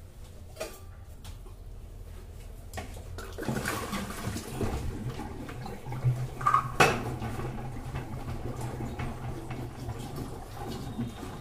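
Water glugging and gurgling as a large plastic water can is turned upside down onto a dispenser stand and drains into it, air bubbling up through the can. A few sharp knocks come about six and a half seconds in.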